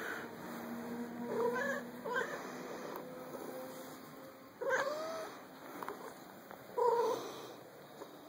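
Domestic cat meowing in about four short calls, the loudest two near the middle and near the end.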